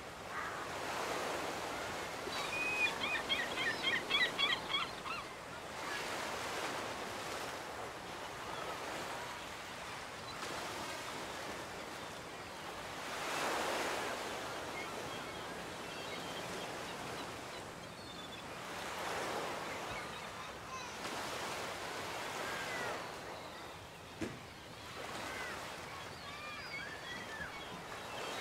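Small waves washing onto a beach, the surf swelling and receding every few seconds. A quick run of high bird chirps stands out a few seconds in, with a few fainter chirps later.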